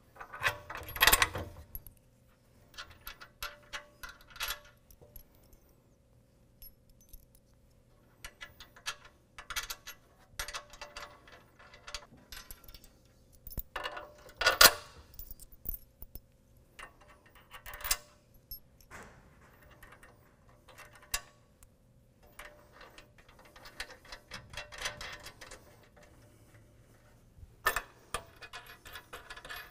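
Steel bolts, washers and lock washers clinking and rattling as they are handled and fitted by hand through a steel tire carrier's mounting plate. The clinks come in scattered clusters, loudest about a second in and around the middle.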